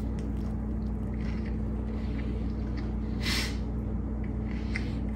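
A person chewing a mouthful of a baked sandwich with mouth closed, over a steady low electrical hum; a short breathy noise comes about three seconds in.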